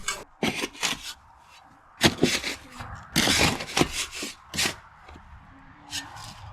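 Shovel digging into and tossing sand and gravel, a string of irregular short scrapes and crunches, the longest a drawn-out scrape about three seconds in.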